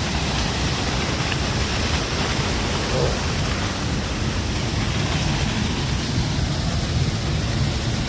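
Large waterfall rushing steadily in heavy flow after heavy rain, a constant wash of falling water with no let-up.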